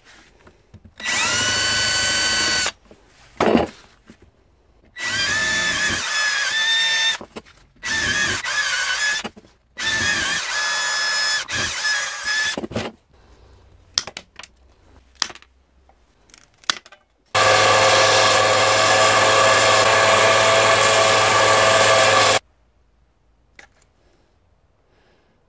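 Cordless drill running in a series of short bursts, each spinning up with a rising whine, as a twist bit bores through a wooden handle scale using the holes in a machete's tang as a guide. A longer steady motor run of about five seconds comes about two-thirds of the way through.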